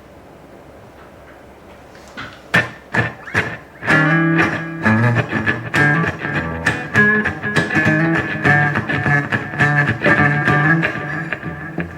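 Gibson Les Paul electric guitar played through an Electro-Harmonix Oceans 11 reverb pedal and amp. After a couple of seconds of low amp hum, a few single plucked notes sound, then from about four seconds in a busy run of picked notes and chords.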